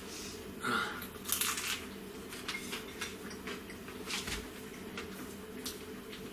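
A person eating pizza, a few short soft chewing and mouth sounds over a steady low hum.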